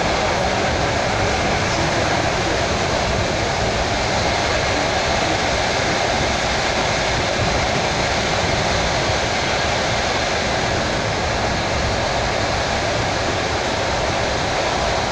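Steady rumble and rush of a suburban electric train (elektrichka) running at speed, heard from inside the carriage.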